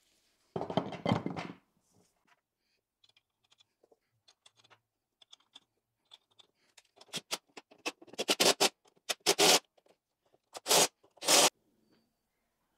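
A lawn tractor wheel being fitted back onto its hub. A scrape of about a second comes as the wheel goes on, then a few faint clicks as the wheel nuts are threaded by hand. In the second half come several short loud bursts of a cordless impact driver running the nuts down.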